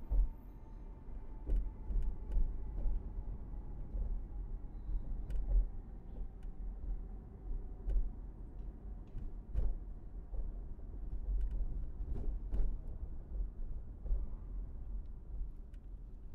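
Low, uneven rumble of a car driving on city streets, with scattered light clicks and knocks.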